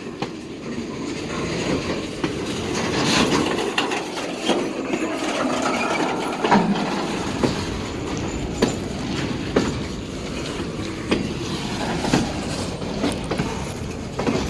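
Freight train cars rolling past at close range, steel wheels knocking over the rail joints about once a second, with a faint squeal of wheels on rail.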